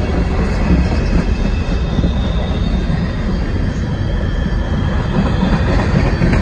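Freight train's open-top, high-sided freight cars rolling past: a steady, continuous rumble of steel wheels on the rails.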